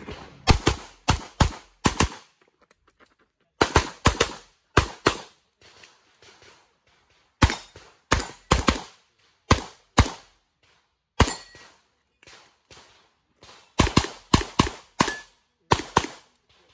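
Handgun fired in rapid strings of shots, several sharp cracks a fraction of a second apart in each string, with short pauses between strings.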